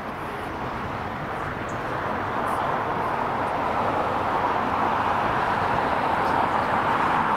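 Jet engines of a taxiing El Al twin-engine widebody airliner running at low taxi power, a steady rushing whine that grows gradually louder as the aircraft comes closer.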